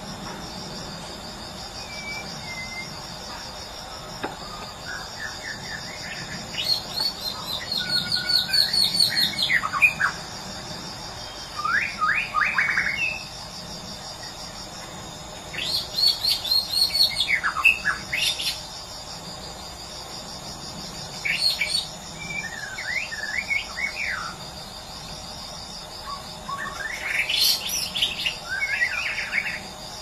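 White-rumped shama (murai batu, Medan type) singing in about half a dozen separate bursts of varied whistles, sweeps and rapid trills, with pauses between. A steady insect trill runs underneath.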